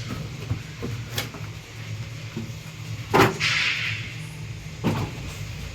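Speaker packing being handled: three sharp knocks, the loudest a little past the middle, followed by a brief scraping rustle, over a steady low hum.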